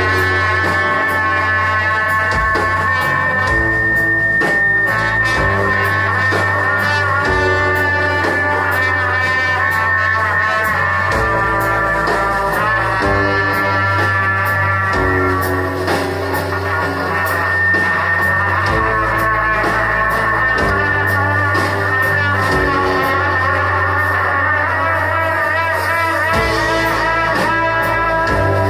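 Live rock band playing a song, led by guitar over a steady bass line, with short percussive strikes throughout.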